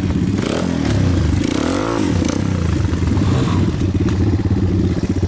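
Pit bike engine running under throttle, its revs rising and falling back about two seconds in, with a few sharp knocks.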